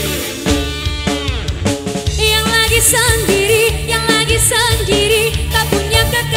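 Live dangdut band playing with a drum kit. About two seconds in, a woman's singing voice comes in over the band, the melody wavering with heavy vibrato.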